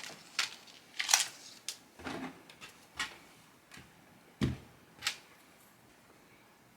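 Hands handling the phone and the small pieces of a screen-protector kit: a string of brief clicks, taps and rustles, with a soft thump about four and a half seconds in, then quiet for the last second or two.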